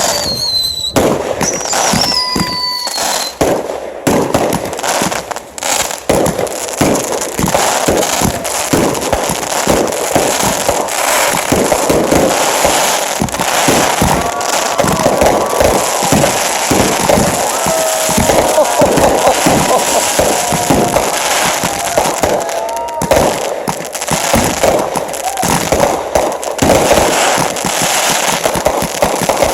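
Fireworks going off in rapid succession: a dense, continuous run of bangs and crackling, with a few falling whistles in the first few seconds.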